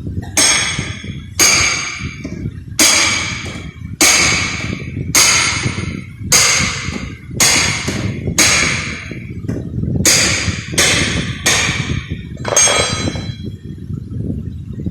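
A hammer striking sheet-metal body panel, about a dozen ringing blows roughly a second apart that stop near the end, over a steady low rumble.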